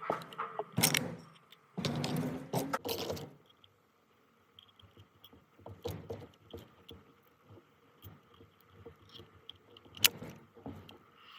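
Clinks, scrapes and knocks of small metal parts and tools being handled, with a longer scraping stretch in the first few seconds and a sharp click about ten seconds in; the drill motor is not running.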